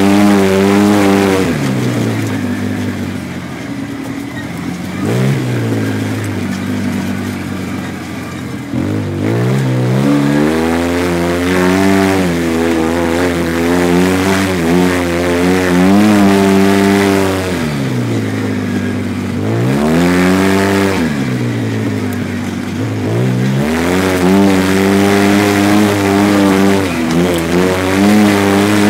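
A car engine revving up and dropping back again and again as it is driven over a rutted dirt track. Its pitch climbs and falls half a dozen times.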